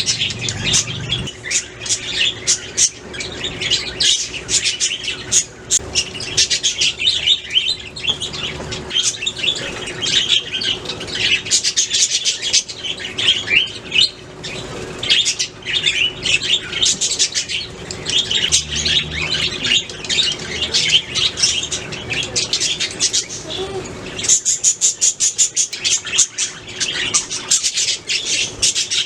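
Several budgerigars chattering and warbling together: a dense, unbroken run of quick chirps and squawks, with a rapid clicky chatter about twenty-five seconds in.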